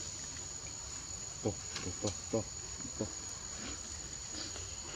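Insects droning steadily as one continuous high-pitched tone, with a few brief cries about one and a half to three seconds in.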